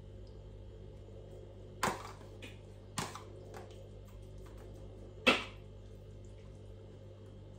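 A metal spoon clinking against a plastic tub while tuna is spooned onto naan pizzas: three sharp taps, the loudest about five seconds in, with fainter clicks between, over a steady low hum.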